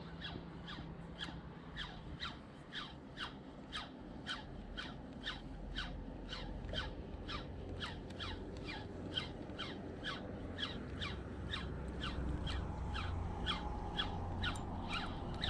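Daiwa BG3000 spinning reel cranked steadily on a lure retrieve, giving a rhythmic squeak with each turn of the handle, about two and a half a second, each squeak falling in pitch.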